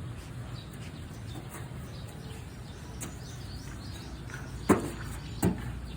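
A wheelbarrow rolling over rough farm ground with a steady low rumble, and two sharp knocks about three-quarters of a second apart near the end as it jolts.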